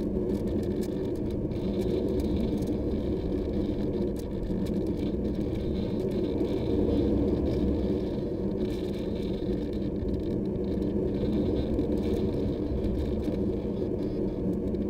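Onboard audio of a radio-controlled model airplane in flight: the motor and propeller drone steadily at a constant pitch under a rush of wind past the camera, with faint crackles throughout.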